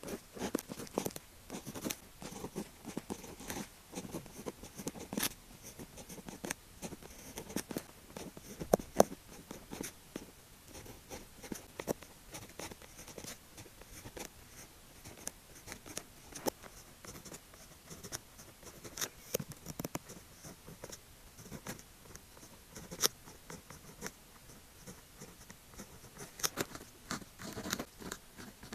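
Pen scratching and tapping on paper while Chinese characters are written by hand, in short, irregular strokes.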